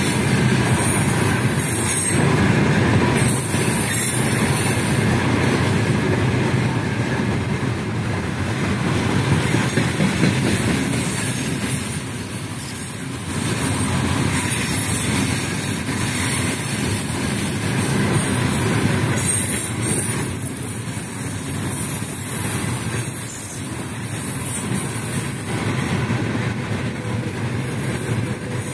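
A heavily loaded freight train's open-top gondola wagons rolling past: a steady rumble and clatter of steel wheels on the rails, with brief high-pitched wheel squeals now and then.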